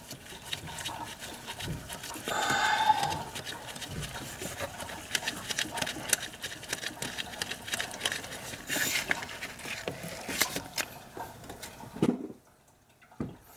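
Quick, irregular metallic clicking and tapping of a hand tool working the water pump's lower mounting bolt, with a short pitched squeak about two and a half seconds in; the sound stops near the end.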